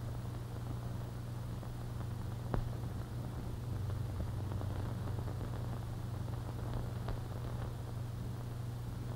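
Low steady hum under a hiss, with two sharp clicks a few seconds apart: the background noise of an old film's optical soundtrack.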